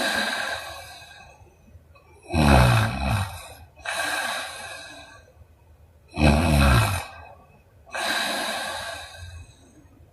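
A sleeping woman snoring and breathing out through her mouth: a breathy blowing exhale, then two loud low snores about four seconds apart, each followed by a long blowing exhale.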